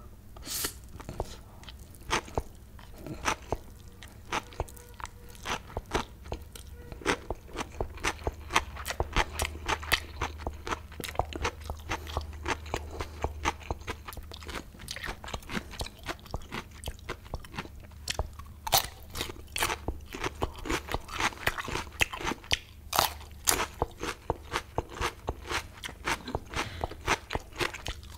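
Close-miked mouth sounds of a person eating: a mouthful of spicy Korean mixed noodles taken in, then steady chewing with many sharp crunches and wet clicks, several a second.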